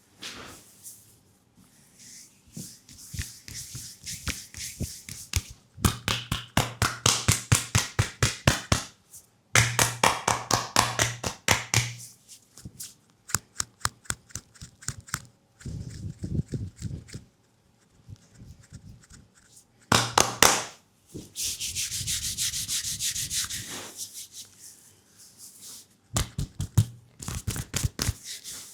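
Leg massage: fast, rhythmic rubbing strokes on skin, several strokes a second, coming in bursts of a few seconds with short pauses between.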